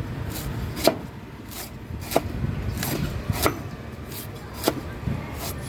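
A blade chopping into a coconut's husk: about nine sharp, separate chops, roughly one every two-thirds of a second.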